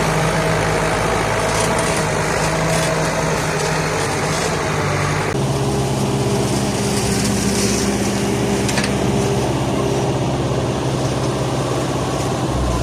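An engine running steadily, its tone changing abruptly about five seconds in.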